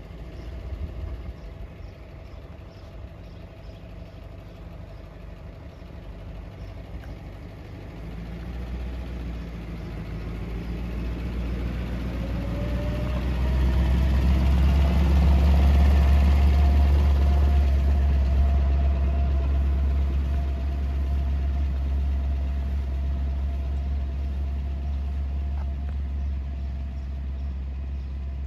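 Ford 8N tractor engine running at low speed as the tractor drives up and passes close about halfway through. It is loudest then, and eases off as the tractor pulls away. A faint whine rises in pitch as it approaches and then holds steady.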